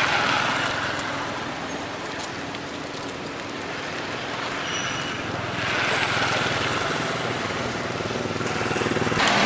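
Outdoor background noise: a steady hiss and rumble that swells about five and a half seconds in and again near the end, with a single sharp click just before the end.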